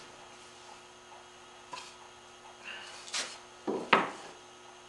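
A wooden board handled and laid down on a wooden workbench: a few light knocks and scrapes of wood on wood, the loudest a knock about four seconds in. A steady electrical hum runs underneath.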